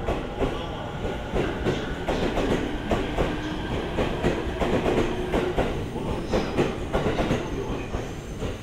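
JR East E231 series electric multiple unit running along a station platform, its freshly trued wheels clicking rapidly over rail joints above a steady rumble, with a faint held tone in the middle.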